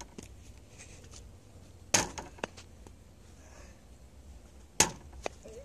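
A small ball being struck hard twice, about 2 s in and near the end, each sharp smack followed by a fainter knock about half a second later.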